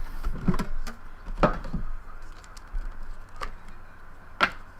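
Trading cards and card packs being handled on a table: scattered light taps and rustles at irregular intervals.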